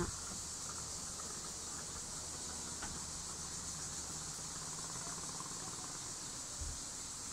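Steady high-pitched insect chorus, like crickets, with a soft low bump near the end.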